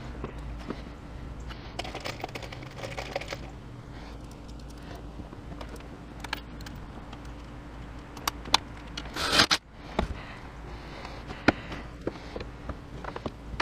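Handling and tool noise: scattered sharp clicks and scraping over a steady low hum, with a short rushing burst about nine seconds in.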